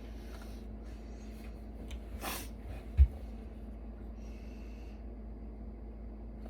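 A short, breathy sniff or exhale about two seconds in, then a single dull, low thump a second later, over a steady low hum and faint handling clicks from taking a server apart.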